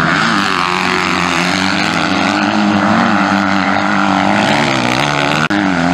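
250cc MX2 motocross bike engines running hard on the track, their pitch rising and falling as riders get on and off the throttle through corners and jumps. The sound breaks off for a moment about five and a half seconds in, then carries on.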